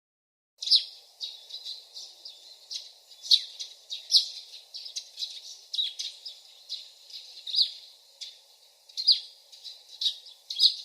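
Small birds chirping: sharp high chirps, many dropping quickly in pitch, repeated irregularly over a faint steady outdoor hiss. They begin about half a second in.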